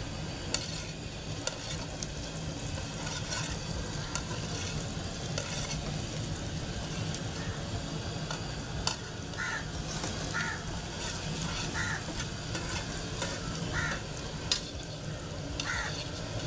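Sesame balls deep-frying in a large iron kadai of hot oil: a steady sizzle of foaming oil, with a few sharp clicks of a metal skimmer against the plate and pan.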